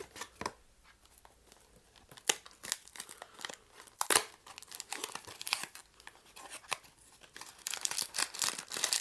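Blind-box packaging of a small rubber figure being torn and crinkled open by hand: irregular paper and plastic tearing and crackling, with a sharper snap about four seconds in and denser crinkling near the end.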